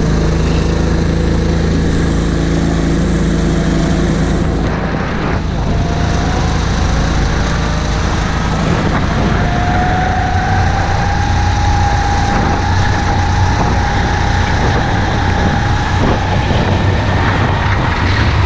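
Go-kart engine running on track. It holds a steady lower note for the first few seconds, then its pitch climbs slowly through the rest as the kart accelerates, over a constant rushing noise.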